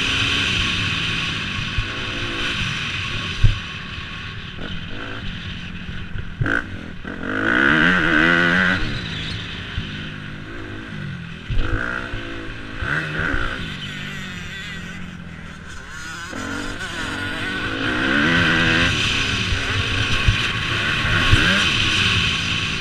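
Suzuki RM-Z250's single-cylinder four-stroke engine, heard from the rider's helmet, revving up and falling back again and again as the bike is ridden hard round the track. A few sharp knocks cut through the engine.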